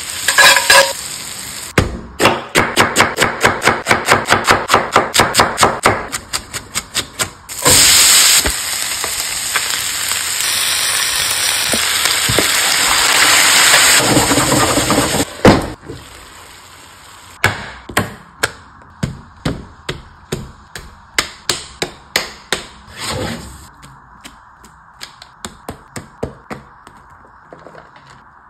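Food frying in a skillet: sizzling, with runs of quick sharp taps, about four or five a second, as a spatula strikes and scrapes the pan, chopping and stirring. The taps come in the first few seconds and again through the second half, with a steady sizzle in between.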